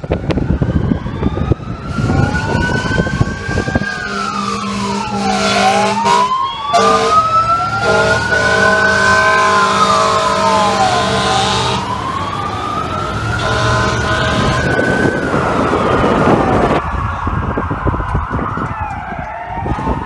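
Emergency sirens on FDNY apparatus wailing, two or more at once, each rising and falling slowly out of step with the others. Road and wind noise from the moving car at first, and a steady droning tone underneath through the middle.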